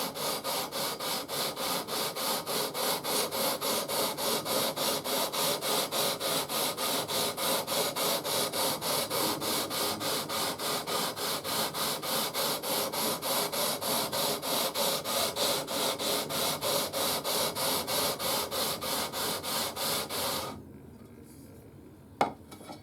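Sanding beam with 300-grit paper rubbed back and forth along a guitar's frets to level them: a steady rasping rhythm of nearly three strokes a second that stops about twenty seconds in, followed by a couple of light knocks.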